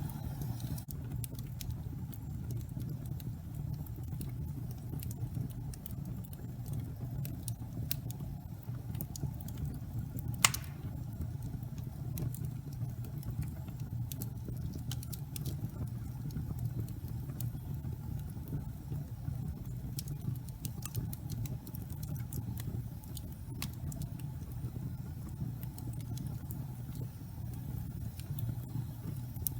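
Fire burning in a fireplace: a steady low rumble with scattered small crackles and pops, and one louder pop about ten seconds in.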